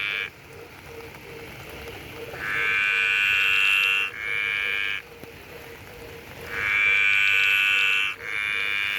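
Green tree frog calling: two long croaking calls a couple of seconds apart, each with a short break near its end, over steady rain.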